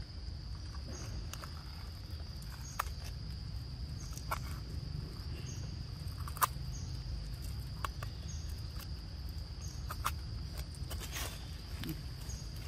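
Insects droning steadily at a high pitch, with a short chirp repeating about once a second, over a low outdoor rumble. Scattered sharp clicks and rustles come through, the loudest about six and a half seconds in.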